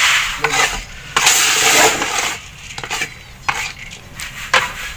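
Roasted chickpeas being shaken in a wire-mesh sieve over a roasting pan, a rattling, hissing sift that comes in several bursts.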